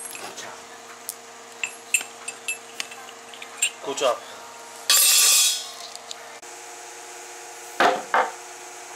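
Light metallic clicks and clinks of loose steel balls from a dismantled ball bearing being handled, with a brief louder metal rattle about five seconds in. Near the end, two heavier knocks as a Hyosung Exiv 250 crankshaft is set down on a plywood board.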